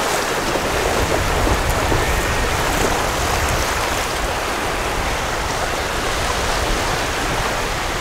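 Shallow sea water at the shoreline: small waves washing in and splashing around a baby sitting and paddling in it, a steady rushing, splashing water noise.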